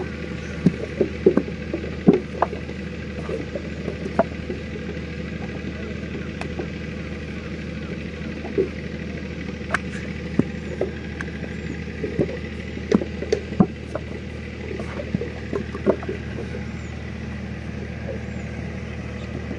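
Wet clay slapped and pressed by hand into a wooden brick mould, heard as scattered short thuds and knocks, over a steady low mechanical drone.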